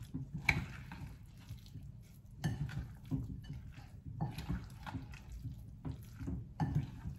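Wet oats-and-semolina (rava) mixture being squeezed and mixed by hand in a glass bowl after water and sour buttermilk have gone in, giving soft, irregular squelches and slurps.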